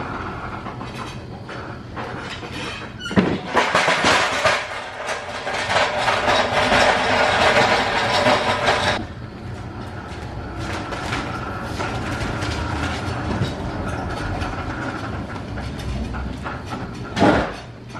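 Manual pallet jack rolling a loaded pallet of stacked plastic produce tubs across a concrete floor: a loud rattling clatter for about six seconds, starting suddenly a few seconds in. A steady background hum follows, with a single sharp clank near the end.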